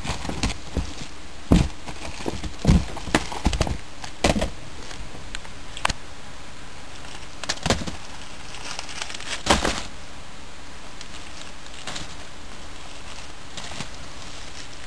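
Fireworks packages being handled and set down: irregular knocks, clicks and rustles, about eight in the first ten seconds, then only a steady hiss.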